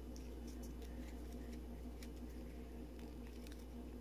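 Faint, scattered light clicks and ticks as a 9-volt battery is handled and taken out of a paintball marker's electronic grip, over a steady low hum.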